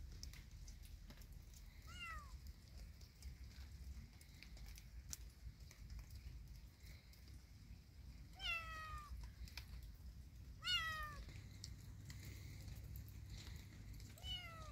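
Tabby kitten meowing four times, each a short call falling in pitch, the third the loudest.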